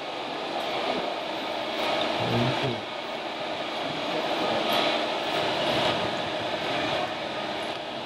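Radio-controlled scale skip-loader truck driving over dirt: a steady mechanical running noise, with a brief low drone about two and a half seconds in.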